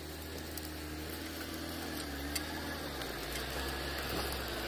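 An engine idling with a steady low hum, joined by a few faint clicks.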